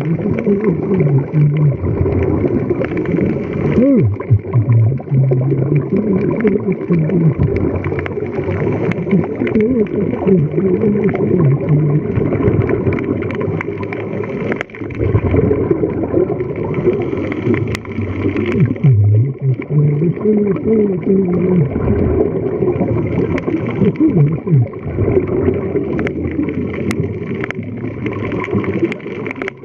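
Muffled underwater sound of scuba diving: gurgling from divers' regulator exhaust bubbles over a steady low rumble, heard underwater so that almost nothing high-pitched comes through.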